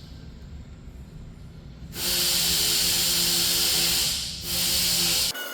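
Compressed air blowing from an air nozzle in two hissing blasts: one of about two seconds starting about two seconds in, then a shorter one after a brief break.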